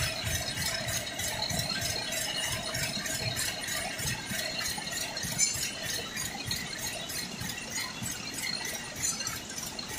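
Machinery running with a fast, even rhythmic rattle over a steady hum, with one sharper knock about five seconds in.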